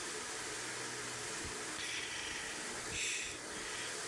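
Steady background hiss with a faint low hum, and two short, soft hissing puffs about two and three seconds in.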